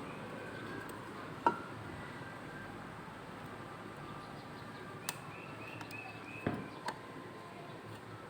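Low background hiss broken by a few sharp clicks and taps of small hand tools at the bench, the loudest about a second and a half in. A short run of faint high chirps comes just after five seconds.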